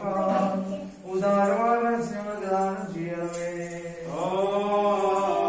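Slow, chant-like singing of a devotional hymn, with long held notes that glide gently in pitch.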